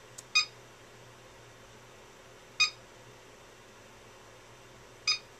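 Revolectrix PowerLab battery charger beeping three short, even beeps about two and a half seconds apart, just after a faint click, as the charge is started and the charger detects the cells.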